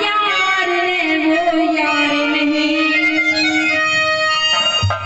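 Live music through a stage loudspeaker system: a woman singing long held, wavering notes into a microphone with instrumental accompaniment, breaking off briefly near the end.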